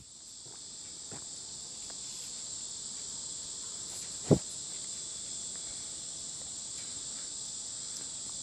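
Steady high-pitched chirring of insects, with a single sharp thump about four seconds in.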